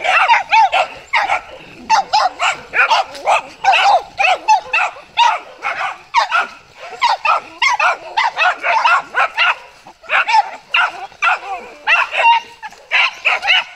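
Small dogs barking and yapping in quick runs, several sharp barks a second with brief lulls between runs.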